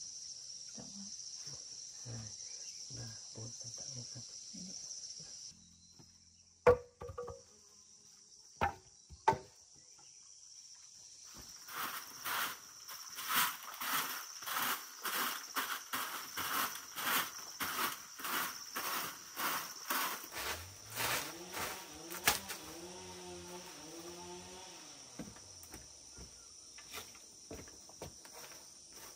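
A dirt floor being swept with a bundle of dried palm fronds: swishing, scraping strokes about twice a second for some ten seconds, after a few sharp knocks. Steady insect chirring runs underneath, and a low wavering hum comes in near the end.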